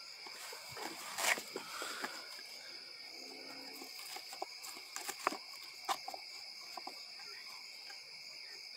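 Crickets chirring steadily, with scattered short crunches and clicks of a horse chewing grass close to the microphone.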